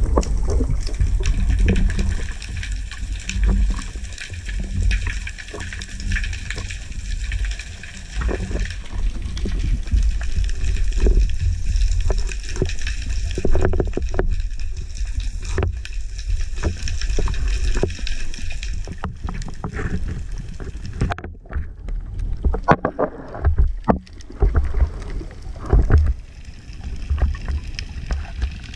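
Underwater sound picked up through a camera's waterproof housing during a spearfishing dive: a low rumble of moving water with scattered knocks and clicks. For the first two-thirds a steady high whine made of several tones sits over it, and it fades out about nineteen seconds in.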